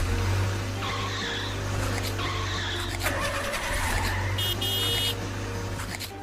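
Cartoon sound effect of a car engine running with tyre skidding noise, and a brief high-pitched beep about four and a half seconds in.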